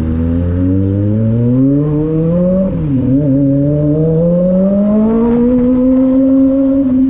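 Kawasaki sport bike's engine through its noisy exhaust, accelerating: the pitch climbs, drops at a gear change about three seconds in, climbs again, then holds steady as the bike cruises.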